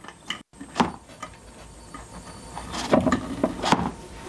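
Several clicks and knocks from hands plugging the battery management system's wiring connectors into a LiFePO4 battery build, loudest toward the end.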